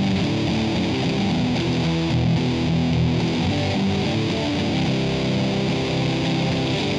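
Outro music: rock with distorted electric guitar, playing steadily.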